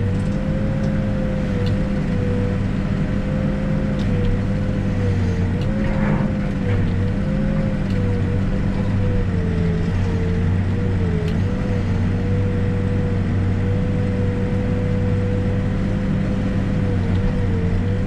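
A New Holland backhoe's diesel engine running steadily, heard from inside the cab, as the digging arm works and swings loads into a dumper. A steady whine rides above the engine note and dips briefly a few times, with a few faint knocks.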